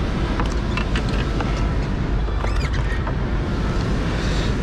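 Steady, loud rumbling noise with a few faint clicks and a brief high chirp about halfway through.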